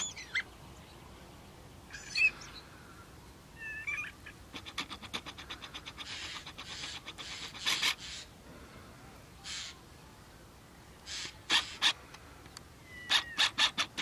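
Birds calling: short harsh calls and quick runs of rattling clicks, with a few brief whistled notes that slide down in pitch, over a faint steady hiss.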